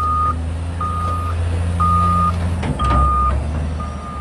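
Heavy vehicle's reversing alarm beeping about once a second, each beep about half a second long, over a steady low engine rumble; a brief knock about two-thirds of the way in.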